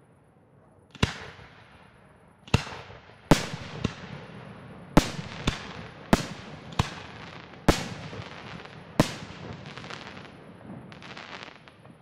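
Aerial firework shells bursting: about ten sharp bangs spaced roughly a second apart, each followed by a rolling echo. Near the end comes a patch of softer crackling.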